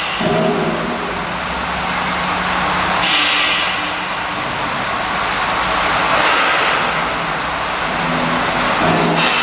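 KT-313F curtain wall end milling machine running: a loud, steady hissing machining noise over a motor hum, swelling about every three seconds.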